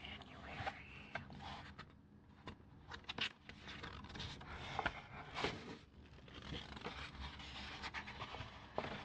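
Fingernails scratching and tracing over a paper calendar page: irregular soft scraping strokes with a few sharp little clicks.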